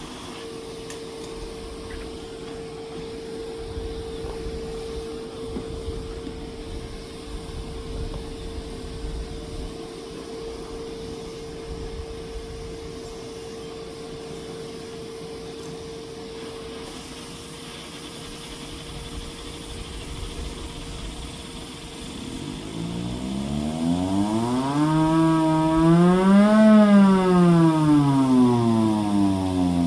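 Hand-crank siren with a blower driving air into it to make it louder. A blower runs with a steady whine for the first half; about three-quarters through, the siren winds up in a rising wail, peaks loudly and starts to wind back down.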